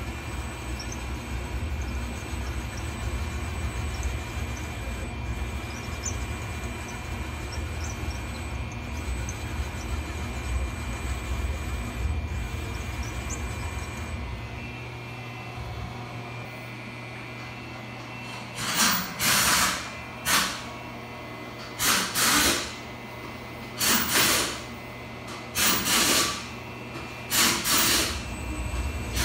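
Syil X7 CNC mill running with a steady hum and low rumble. In the second half, short noisy bursts come about every two seconds as the table is jogged back and forth under a dial test indicator.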